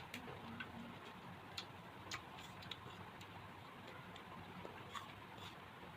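Faint eating sounds: about ten small, sharp clicks and taps at irregular intervals, as fruit is picked from a plate and eaten blindfolded.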